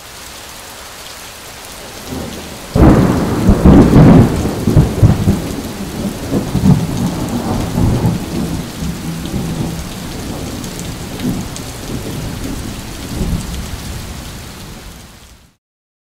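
Steady rain with a thunderclap crashing about three seconds in, then long rolling rumbles of thunder that die away and fade out near the end.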